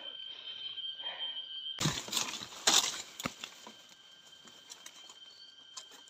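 Rustling and crackling of leaves and brush, with a few sharp snaps, loudest from about two to three and a half seconds in, as someone pushes through undergrowth searching on foot. A faint steady high whine runs underneath.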